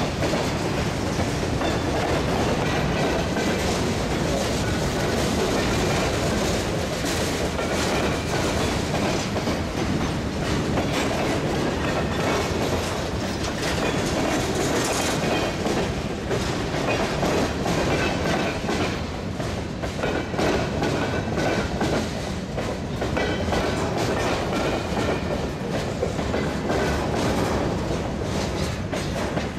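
Covered hopper cars of a BNSF manifest freight train rolling past close by at steady speed: a continuous rumble of steel wheels on rail, broken by frequent clicks as the wheels cross rail joints.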